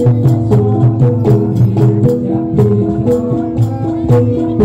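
Javanese gamelan playing jathilan dance music: struck metal keyed instruments ring a repeating melody over a quick, regular beat of drum and percussion strokes.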